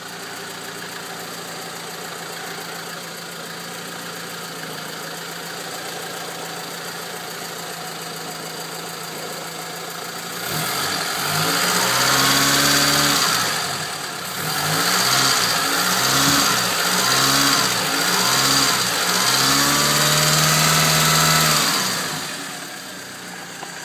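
1987 Honda Civic's D13 12-valve four-cylinder engine idling steadily through its stock exhaust and muffler, then revved in several blips from about halfway, the last held for a couple of seconds, before it settles back to idle.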